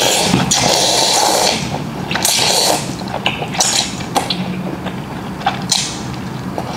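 Close-up slurping of noodles: one long slurp over the first second and a half, then several shorter slurps.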